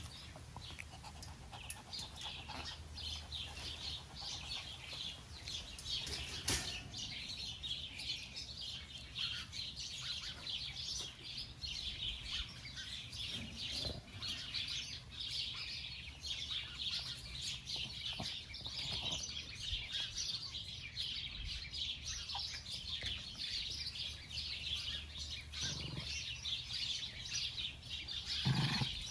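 Small birds chirping continuously, a dense chatter of many short high chirps, with one sharp knock about six and a half seconds in.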